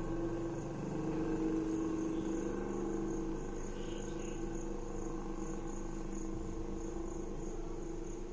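A steady hum with a faint, high-pitched chirping that pulses about three times a second.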